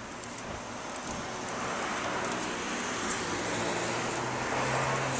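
Road traffic: a motor vehicle's engine hum and tyre noise growing steadily louder as it approaches.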